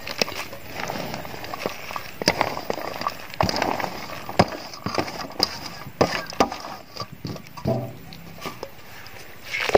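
A wooden pestle knocking irregularly in a large mortar as it pounds shredded green papaya into chili paste for papaya salad.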